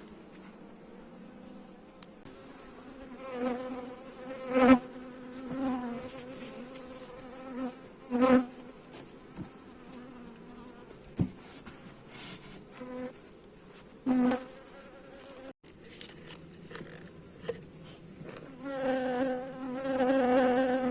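Honeybees buzzing close to the microphone. The buzz swells and fades as bees fly past several times, and a longer, steadier buzz comes near the end.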